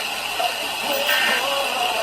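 Weather radio reception hissing with static on a weak, interfered signal, with short faint tones from the interference breaking through about a second in.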